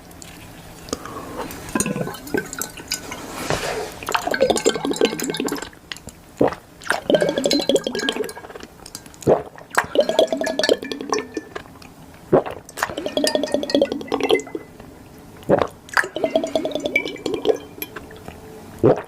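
Water poured into a glass container in about five short pours of roughly two seconds each, with sharp clinks of glass between them.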